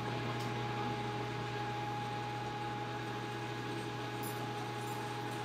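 Metal lathe running with a steady low hum and a faint whine, no cutting.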